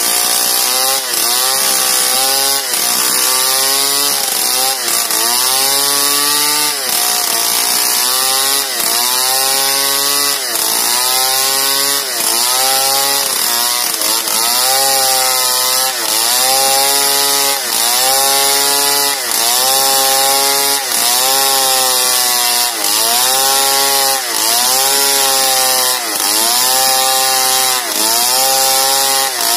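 Two-stroke chainsaw ripping lengthwise along a large log under load. The engine runs loud and steady, its pitch dipping and recovering about every two seconds as it cuts.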